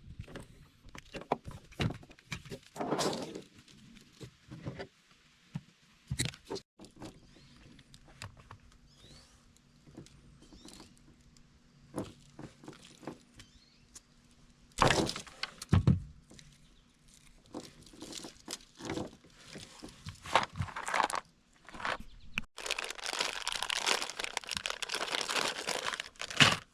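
Hands handling heavy 6-gauge battery cable and tools: scattered clicks and knocks, with a few sharper crunching impacts. Near the end comes about four seconds of dense rustling, crinkling noise.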